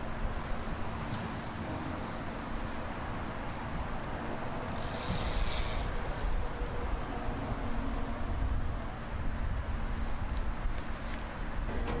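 Outdoor background noise dominated by a steady low rumble of distant vehicles, with a brief hiss about five seconds in.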